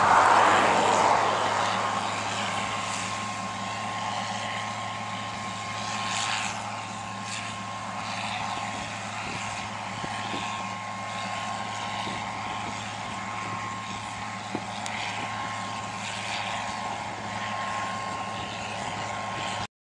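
John Deere 4650 tractor's six-cylinder diesel running steadily while pulling a bean planter, with a constant whine over the engine drone; loudest about a second in, then easing to a steady level.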